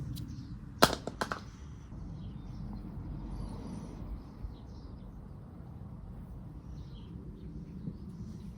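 One sharp click about a second in, followed quickly by two lighter clicks, like metal parts or a tool being handled, over a low steady rumble.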